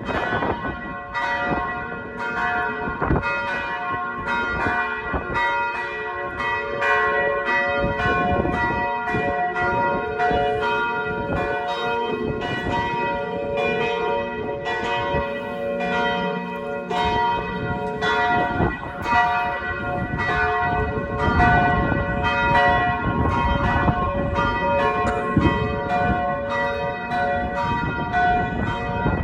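Several church bells ringing together for the noon peal: dense, overlapping strikes with long ringing tones, going on without a break.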